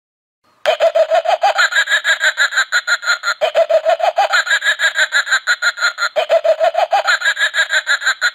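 A harsh, distorted sound effect that stutters rapidly at about eight pulses a second, with a wavering pitch. It starts after a short silence and plays as a loop of a little under three seconds, repeated three times.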